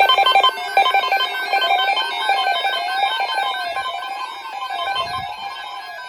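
Music with an electronic alarm-like tone: rapid trilling beeps at first, then a tone sliding up and down about once a second, over plucked, guitar-like notes.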